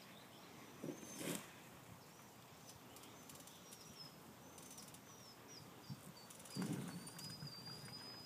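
A small songbird chirping in a run of short high notes, ending in a longer held note near the end, faint against outdoor ambience. Soft low thumps sound about a second in and again past the six-second mark.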